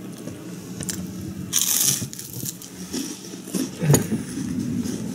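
Crisp deep-fried bread crunching as it is bitten and broken apart: a loud crackly crunch about one and a half seconds in, smaller crackles, and another sharp crunch near four seconds.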